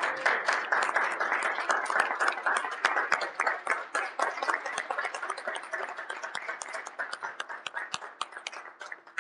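A small crowd applauding: dense hand-clapping that gradually thins and quietens toward the end.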